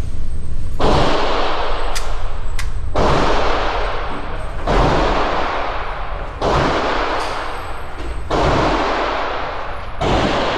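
Gunshots at a shooting range, about six heavy shots spaced a second and a half to two seconds apart, each with a long echoing tail. Two sharper, shorter cracks come between the first two.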